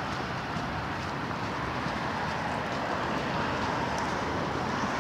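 Road traffic going by: a steady wash of tyre and engine noise.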